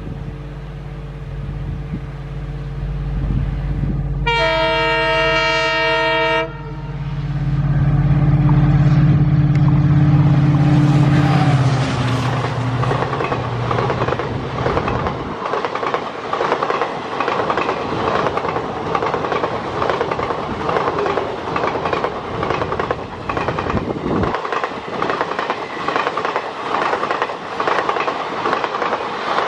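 WDP-4D diesel locomotive approaching with its two-stroke 16-cylinder EMD engine running, sounding its horn for about two seconds, then passing close, its engine loudest and dropping in pitch as it goes by. Then the passenger coaches rush past with a steady rumble and fast, even clickety-clack of wheels on the rails.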